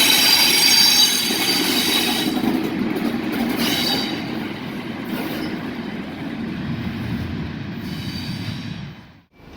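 A train running past on the rails, its wheels squealing with high, thin tones over the rumble and clatter of wheels on track. It grows quieter after a few seconds, and the sound cuts off abruptly near the end.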